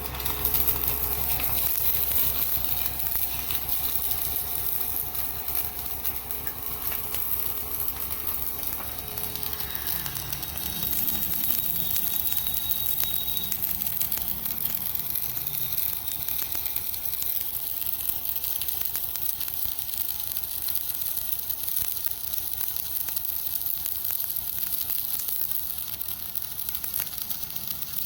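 Stick (arc) welding arc sizzling and crackling steadily as a weld bead is run. The arc strikes suddenly at the very start.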